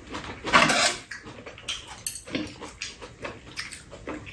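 Metal chopsticks and spoons clicking and scraping against bowls and a metal pot while people eat: a run of small clicks, with a louder spell of noise about half a second in.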